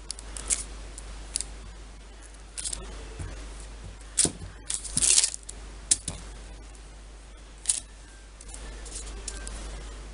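Plastic Play-Doh toys and tools being handled: scattered clicks, taps and short rustles, thickest about four to five seconds in.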